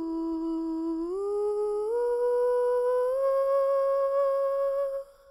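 A sustained humming tone that climbs in several small steps, from low to higher, over about five seconds. It then cuts off, leaving a faint lingering ring.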